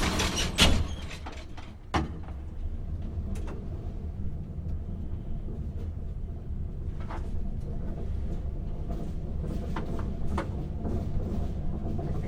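Old elevator: its door clatters and shuts with a bang just under a second in, a single knock follows about two seconds in, then the car runs with a steady low hum and scattered clicks and rattles.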